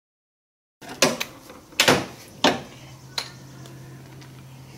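A few sharp clicks and knocks of hand tools and parts being handled around the car battery in the engine bay, after a brief silent cut; a faint low hum sets in about halfway through.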